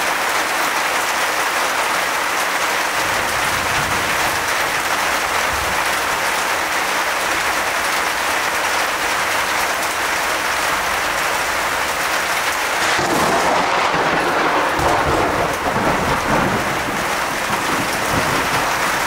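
Torrential downpour of rain falling steadily, with a roll of thunder swelling about thirteen seconds in and rumbling on for a few seconds.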